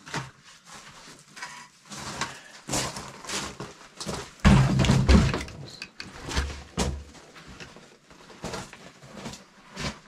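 Split firewood logs clunking against each other as they are loaded into a canvas log carrier, a string of irregular wooden knocks with the heaviest thumps about halfway through.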